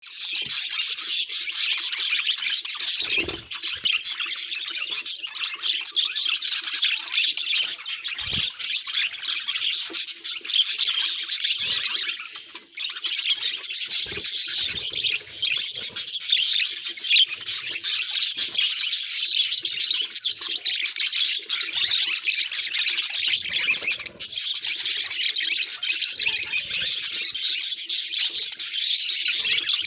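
Budgerigars chattering and warbling without pause, a dense high twittering, with a couple of soft knocks early on.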